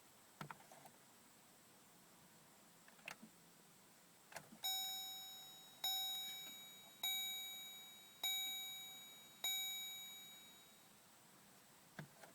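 A truck's warning chime sounds five times, about 1.2 s apart, each tone dying away slowly. A few light clicks come before the chimes and one near the end.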